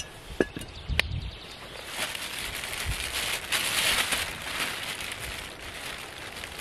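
Two sharp knocks about half a second and a second in as a cast-iron three-legged pot is set down on a wooden bench. From about two seconds in, a plastic bag crinkles for several seconds as it is handled with a gloved hand.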